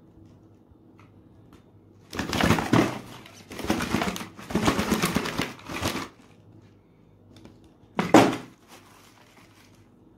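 Clear plastic candy tubes handled in the hands, their thin plastic crinkling in a run of loud bursts for about four seconds, then one short sharp crackle a couple of seconds later.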